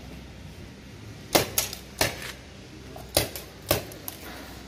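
Mounted paintball marker firing single shots: four sharp pops at uneven intervals, starting about a second and a half in, with fainter clicks after some of them.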